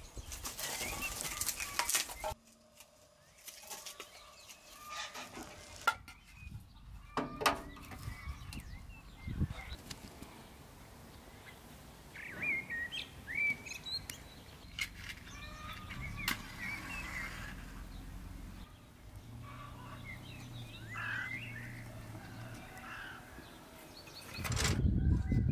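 Birds chirping and calling, with a few sharp knocks of firewood being handled at a sheet-steel wood stove. A louder, low rushing noise sets in near the end.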